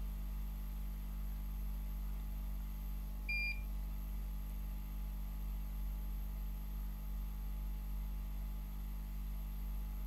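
A single short electronic beep about three and a half seconds in, over a steady low electrical hum from the bench equipment.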